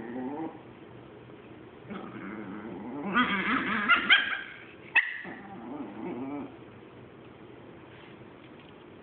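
Chihuahua growling low and breaking into a burst of high-pitched yaps about three seconds in, one sharp yap at five seconds, then growling again. It is the warning growl of a dog guarding its hoarded toys.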